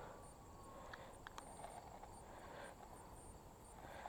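Near silence: faint outdoor ambience with faint, high-pitched insect chirping repeating irregularly, and a few soft clicks about a second in.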